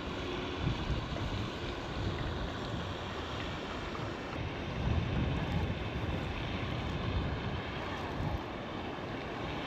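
Strong wind buffeting the microphone: a steady rushing hiss with uneven low rumbling gusts.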